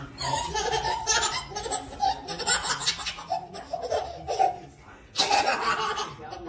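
A baby laughing hard in repeated belly-laugh bursts, dipping briefly about four and a half seconds in, then breaking out loudly again.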